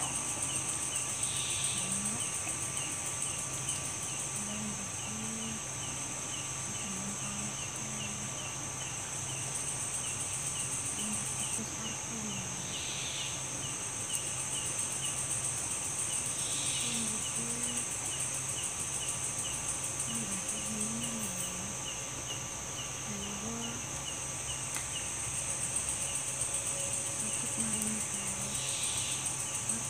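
Night insects and crickets calling steadily: a continuous high buzz with a rapid, regular ticking call of about two to three ticks a second, and now and then a higher chirp. Beneath them a low voice faintly murmurs a mantra in short phrases.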